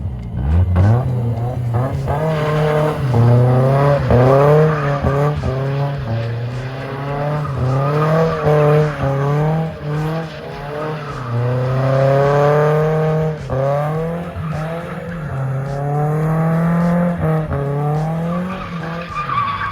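BMW E36 318i's four-cylinder engine held at high revs, rising and dropping as the car is drifted, with tyres squealing in wavering tones over it.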